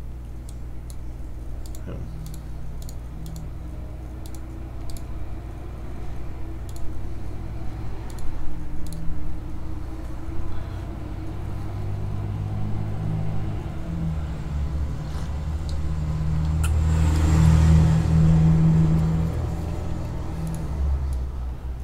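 A low rumble that builds from about twelve seconds in, is loudest around seventeen to eighteen seconds, then fades. Scattered light clicks of a computer mouse come mostly in the first half.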